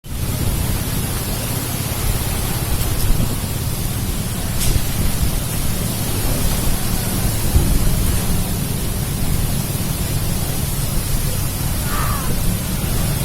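Heavy rain and strong wind: a steady rushing noise, with wind buffeting the microphone in a low rumble.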